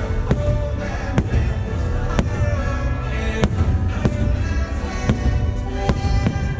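Fireworks bursting, a string of sharp bangs about two a second, over the show's music.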